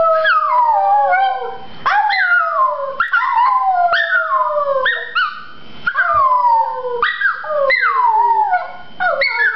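Chihuahua howling: a string of short howls, about one a second, each starting high and sliding down in pitch.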